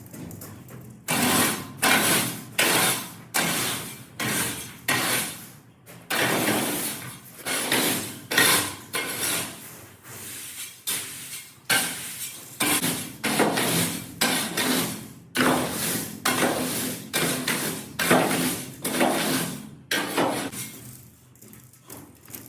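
Scoop shovel scraping and scooping shelled corn along the floor of a steel grain bin, sharp strokes about one to two a second, quieter near the end. This is the hand cleanup of corn that the bin sweep cannot reach.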